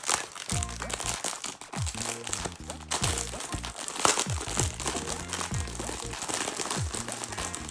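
Plastic wrapping crinkling as a packet of replacement printer ink pads is opened by hand, over background music with a repeating bass line.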